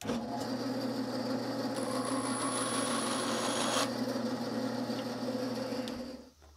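Bandsaw running with a steady motor hum while its blade cuts a small hickory wedge blank. The cutting hiss stops a little before four seconds in; the motor runs on and dies away near the end.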